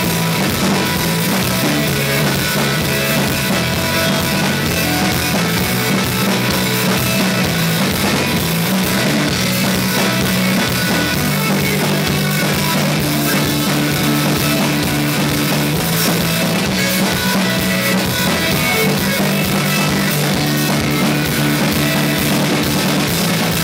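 A live instrumental rock band playing at full volume: electric guitar, electric bass holding long low notes, and a drum kit with constant cymbal hits.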